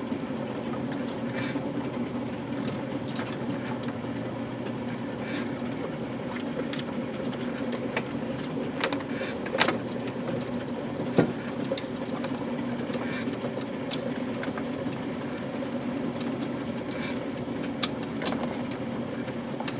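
Steady mechanical hum from an O-scale toy-train layout, with scattered light clicks as small model parts are handled and hooked together.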